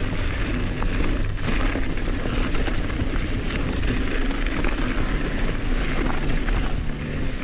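Mountain bike riding a dry dirt singletrack: tyres rolling and crunching over dirt and leaf litter, with a steady rush of wind on the bike-mounted camera's microphone and a few small clicks and rattles.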